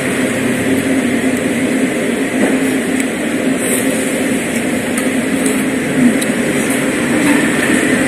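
Steady mechanical rumble with a low hum, with a few faint clicks.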